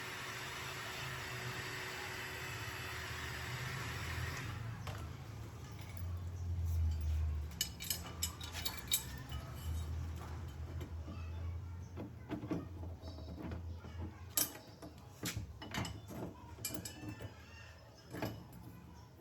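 A steady hiss that cuts off sharply about four and a half seconds in, then low rumbles and scattered light metallic clicks and knocks of dent-repair tools being handled and worked on a car door panel.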